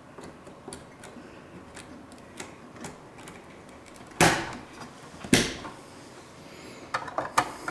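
DDR4 server memory module pressed down into a motherboard DIMM slot, the slot's retention latches snapping shut with two sharp clicks about a second apart, a little after halfway. A quick run of smaller clicks follows near the end.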